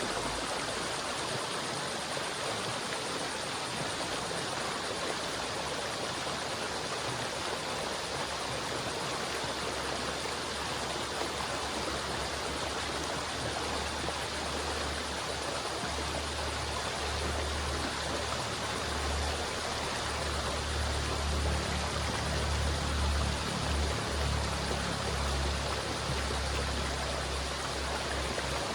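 River water flowing steadily, with a low rumble that swells through the second half.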